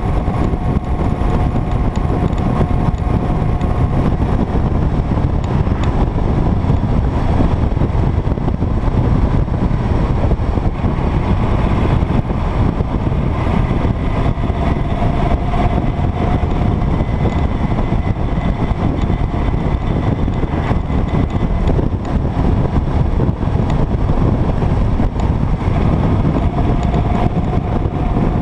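Motorcycle cruising at steady road speed: engine drone and heavy wind rush on the microphone, with a faint higher whine that comes and goes.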